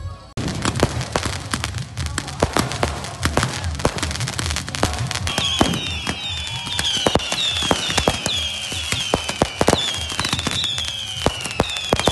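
Fireworks going off at close range: a dense, rapid crackle of firecracker bangs and pops. About five seconds in, a string of short, high whistles joins it, each dropping in pitch.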